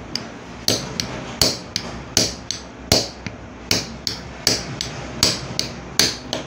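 Hammer blows on a hollow steel punch driving it through motorcycle tire rubber to cut out a ring-shaped packing: about eight steady strikes, roughly three every two seconds, each followed by a lighter tap.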